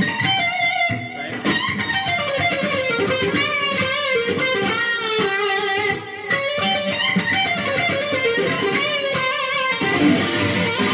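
Stratocaster-style electric guitar playing a G minor blues lick, note after note, with string bends, slides and vibrato and a short break about six seconds in. The bends are pushed a little sharp or flat of their target notes for a sour, vocal sound.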